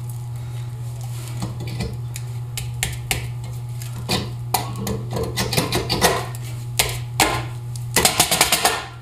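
Metal clinks and knocks as a heavy steel backing plate assembly is worked onto the end of a Sterling 10.5 axle housing, the clicks coming more often toward the end and closing with a quick run of clicks. A steady low hum runs underneath.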